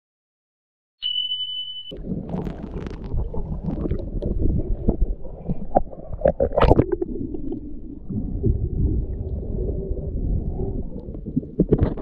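Sea water sloshing, gurgling and rushing right against a camera's microphone as it moves at and just below the surface, with scattered knocks. A short high beep comes about a second in, just before the water noise starts.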